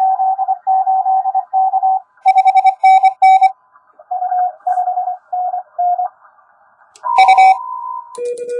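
Morse code (CW) from an Index Labs QRP+ ham transceiver on 10 metres: dots and dashes keyed at one steady pitch for about six seconds. About seven seconds in, a louder, higher tone comes in, followed near the end by a lower-pitched Morse signal.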